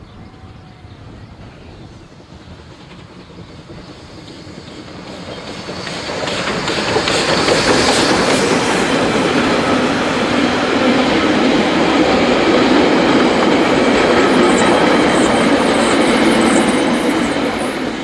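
Wab-class steam tank locomotive and its train of carriages approaching and passing close by. The sound builds from about four seconds in, then holds loud as the carriage wheels clatter over the rail joints, and cuts off suddenly at the end.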